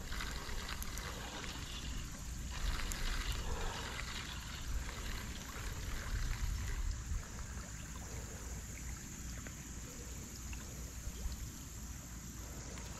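Steady rush of water spilling over a concrete spillway, with a low rumble underneath.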